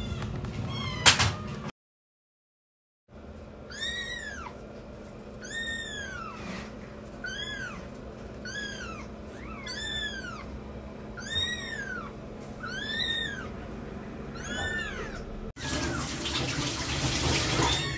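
Unweaned tabby kitten mewing over and over, high thin cries about one a second, each rising and then falling in pitch. A rush of rustling noise follows near the end.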